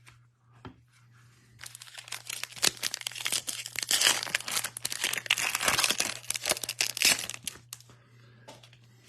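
A trading card pack's wrapper being torn open and crumpled, a dense crinkling with many sharp crackles lasting about six seconds from a second and a half in.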